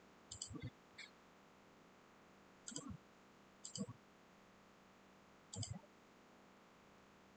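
Faint computer mouse clicks: about five short clicks, irregularly spaced a second or two apart.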